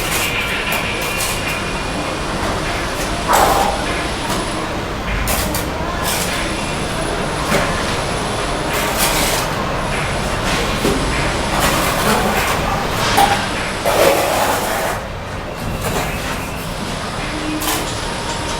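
Bricklaying sounds: a trowel scraping mortar and knocking cement bricks into place, heard as scattered sharp knocks and scrapes over a steady background rumble.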